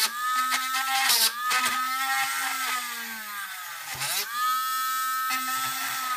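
Small handheld rotary tool drilling holes in a hard plastic RC car body shell. It whines steadily, and its pitch sags several times as the bit bites into the plastic, most deeply about four seconds in, then picks back up. It is perforating a cut line so the shell can be snipped along the dotted holes.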